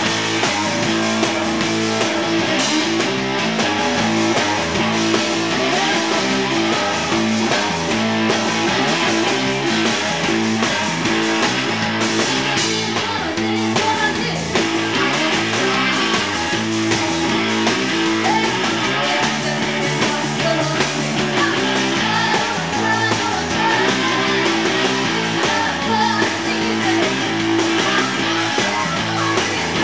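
Live two-piece rock band playing: electric guitar and a drum kit, with a woman singing at times.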